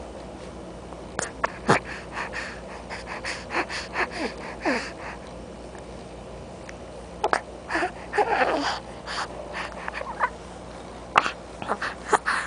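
A baby making short breathy puffs, grunts and little squeaky cries close to the microphone, in scattered bursts with a quieter stretch around the middle.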